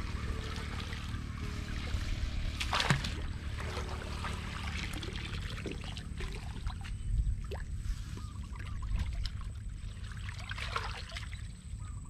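Muddy water sloshing and trickling as a person wades and works a woven bamboo basket scoop through a shallow ditch, with one sharper splash about three seconds in, over a low steady rumble.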